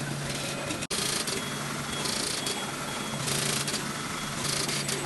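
SMT pick-and-place machine running: a steady low hum under constant hiss, with four louder bursts of hiss about a second apart.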